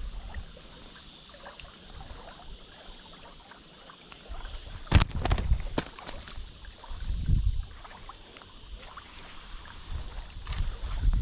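Outdoor handling noise on a body-worn action camera's microphone: a steady high hiss, a sharp click about five seconds in, and a few short low rumbles from wind or handling soon after.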